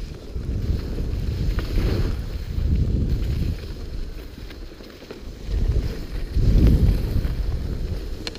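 Wind rushing over the microphone of a skier heading downhill, with the skis sliding over snow; the low rush swells and eases several times, loudest about two-thirds of the way through.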